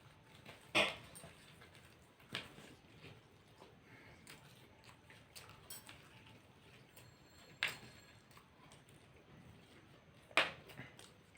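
Faint eating sounds from people starting on fried snacks: four or so scattered short, sharp clicks or crunches, with quiet mouth and plate noises between.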